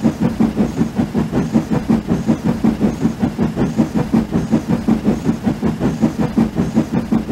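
Steam locomotive running at speed, a quick, even beat of exhaust chuffs.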